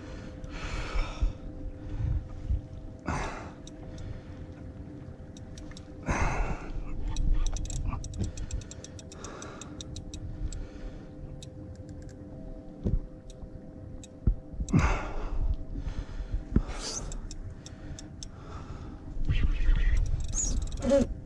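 Wind rumbling on the microphone and water slapping against a kayak hull, with a run of small clicks from the spinning reel and rod and several short hard breaths from an angler straining against a hooked tarpon.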